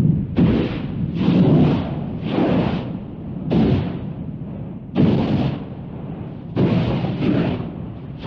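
A series of deep booming blasts, about eight at uneven spacing, each lasting under a second over a steady low rumble; the sharpest and loudest comes about five seconds in.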